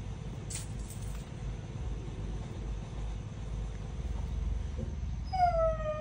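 A cat meows once near the end, a short falling cry over a steady low background rumble. A brief rustle sounds about half a second in.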